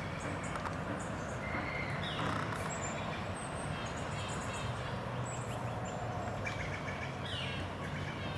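Outdoor ambience: a steady low rumble of distant traffic, with birds chirping over it, including a few short notes that slide downward about two seconds in and again near the end.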